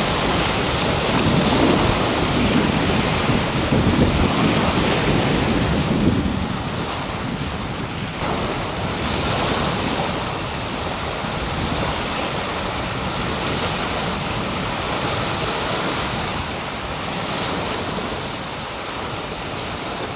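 Small waves breaking and washing up on a shore, surging in every few seconds. Wind rumbles on the microphone for about the first six seconds, then eases.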